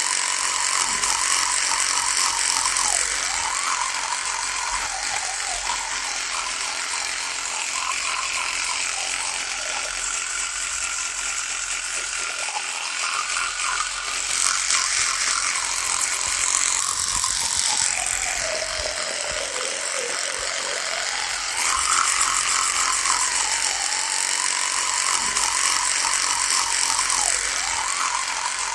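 Electric toothbrush buzzing steadily, its hum wavering in pitch. About two-thirds of the way through it sags noticeably lower, then climbs back.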